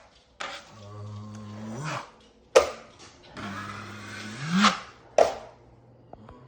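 A drywall knife scraping fast-setting joint compound in two long strokes, with a sharp knock after each. A low hum runs under both strokes and rises in pitch at its end.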